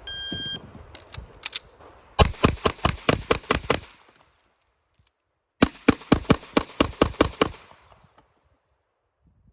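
Shot-timer start beep, then a Walther PPQ Q5 Match SF 9mm pistol fired in two rapid strings of about nine shots each, with a pause of a second and a half between the strings.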